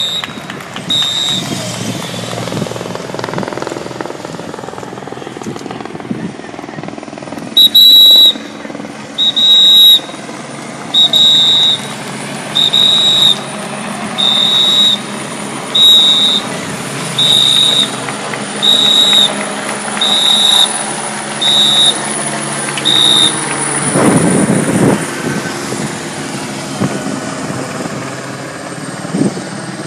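A whistle blown in short, shrill blasts: a couple at the start, then after a pause about a dozen more, roughly one every second and a half. Underneath runs a steady rumble of vehicles, with one passing close near the end.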